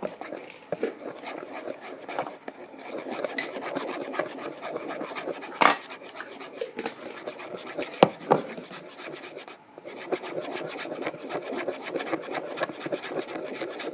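Homemade soap slime being stirred in a bowl: continuous rubbing and scraping of the mixing utensil through the sticky mixture, with two sharp knocks near the middle.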